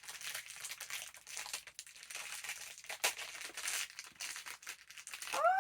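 Crinkly plastic wrapper being handled and torn open, a run of irregular rustles and small crackles with a sharp click about three seconds in.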